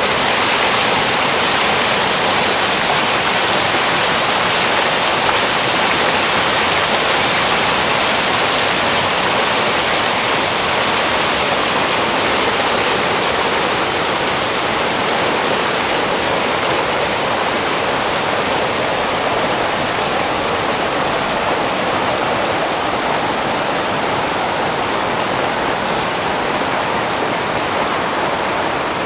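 River rapids rushing over boulders: a loud, steady rush of whitewater, its hiss easing slightly about halfway through.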